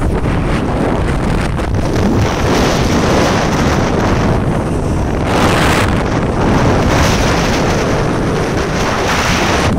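Wind buffeting a phone's microphone aboard a speedboat running at speed, a loud steady rushing roar with the boat's water noise underneath. It surges louder about midway and again near the end.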